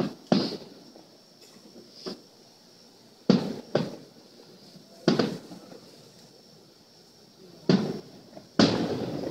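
Fireworks bursting: a series of about eight sharp bangs in nine seconds, each trailing off in an echo. The loudest come at the start, at about three seconds in, and near the end.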